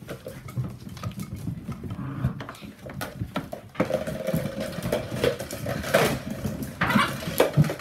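Whippet puppies play-fighting and scrambling on a hard floor: a rapid clatter of claws and knocks of bodies, busier and louder from about four seconds in.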